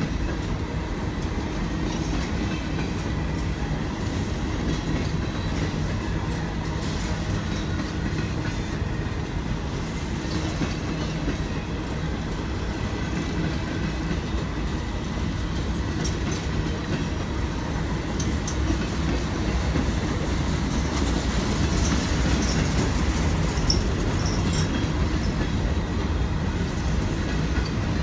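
Covered hopper cars of a freight train rolling past, a steady rumble of steel wheels on the rails, with a few brief high squeaks from the wheels about three-quarters of the way through.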